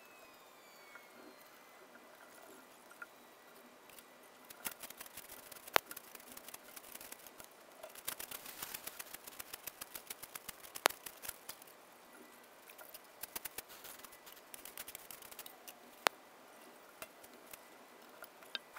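Faint, irregular scraping and clinking of shovels working crushed stone into wheelbarrows, with three sharp metallic clanks spread through the middle.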